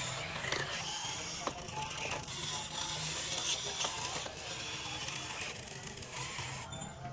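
Small electric motors and gearing of a radio-controlled construction model whirring unevenly, with scattered sharp clicks.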